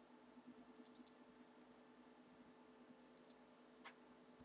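Near silence: faint room hum with a few soft clicks, a quick cluster about a second in and a couple more a little after three seconds.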